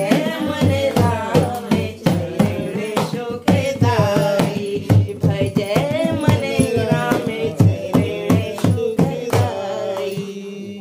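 Women singing a Hindu devotional bhajan, accompanied by a hand-played dholak drum beating a steady rhythm, with hand-clapping.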